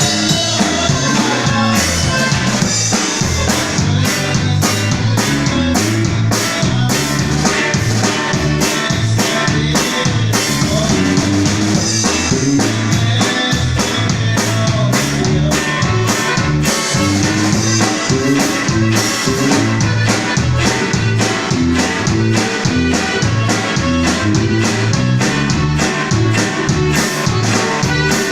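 Upbeat recorded music with a steady drum beat, bass and guitar.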